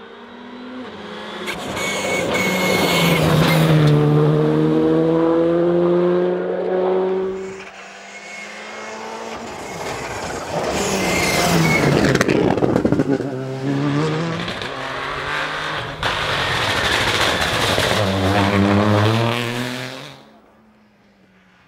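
Rally cars passing at full throttle, among them a Škoda Fabia rally car with its turbocharged 1.6-litre four-cylinder. Three hard passes, the engine pitch climbing and falling with throttle and gear changes. The sound drops away shortly before the end.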